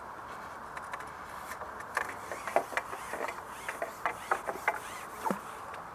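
Irregular light clicks and rubs of fishing pole and tackle being handled, starting about two seconds in, over a steady outdoor hiss.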